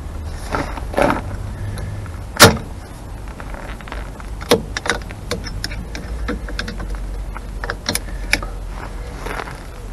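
Metal clicks and light scrapes of a screwdriver and small steel springs against drum brake shoes and back plate as the shoe springs are worked into place. There is one sharp, loud click about two and a half seconds in, then scattered lighter clicks.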